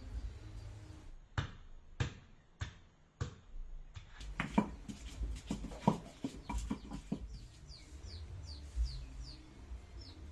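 Four sharp knocks about half a second apart, then a quick clatter of knocks and clicks, followed by a run of short, high, falling chirps typical of chicks peeping.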